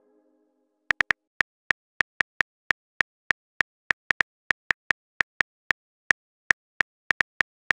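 Simulated smartphone keyboard tap clicks, one short identical click per typed letter, about 28 in all at an uneven typing pace, starting about a second in.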